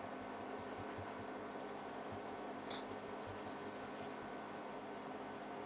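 Faint scraping and rubbing of a butcher's knife working through a chuck roast to cut out a tough tendon, with a small click about halfway through. A steady electrical hum runs underneath.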